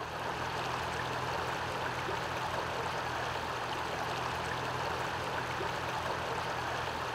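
Fast-flowing river water rushing in a steady, even wash, with a faint steady low hum underneath.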